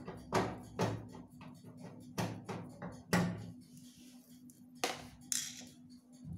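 Repeated knocks and clicks, as of parts and tools being handled, over a steady low hum, with a short hiss about five seconds in.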